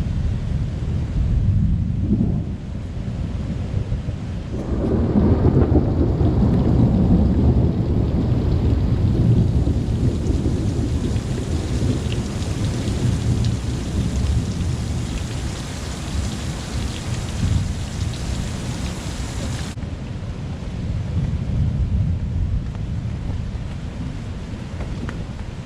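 Thunder rumbling in a rainstorm over steady rain. The low rumble swells about five seconds in and slowly dies away, and the higher hiss of the rain drops off suddenly about twenty seconds in.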